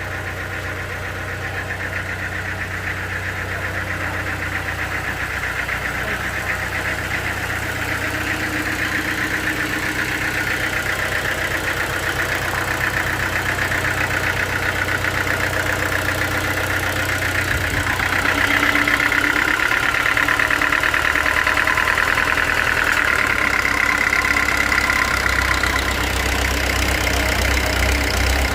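Sawmill machinery running steadily, a low hum with a higher whine above it. The whine and the level rise about two-thirds of the way through, and a deeper rumble joins near the end.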